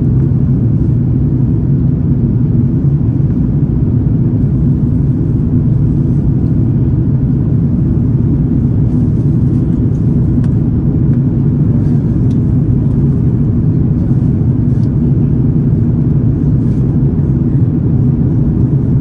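Steady low rumble inside the cabin of an Airbus A330-900neo climbing after takeoff: its Rolls-Royce Trent 7000 engines at climb power and air rushing past the fuselage.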